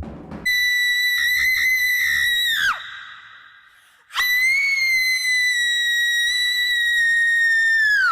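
Two long, shrill, very high-pitched screams as a Halloween sound effect. The first wavers a few times before breaking off with a drop in pitch about two and a half seconds in. The second is held steady for about four seconds and falls away at the end.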